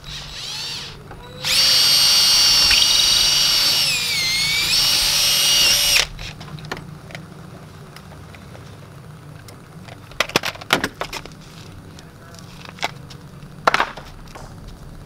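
Cordless drill spinning up briefly, then running steadily for about four and a half seconds at a golf cart's front wheel, its pitch sagging for a moment under load before it stops suddenly. Light clicks and knocks follow.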